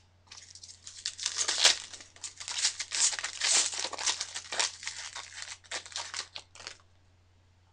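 Foil wrapper of a Bowman Chrome baseball card pack being torn open and crinkled by hand: a dense run of crackling rustles that stops about a second before the end.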